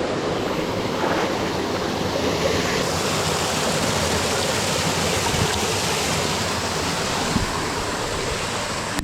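Steady rushing of creek water tumbling over rocks, an even hiss with a few faint knocks.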